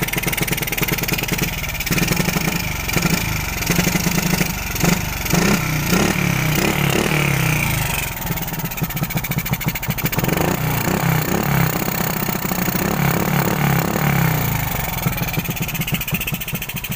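A stock 125 cc motorcycle engine running on a newly fitted SWR 28mm flatslide carburetor. It runs unevenly, its pitch rising and falling with the throttle, with a rough note the owner likens to a Kubota diesel and sets out to cure by moving the carburetor needle clip.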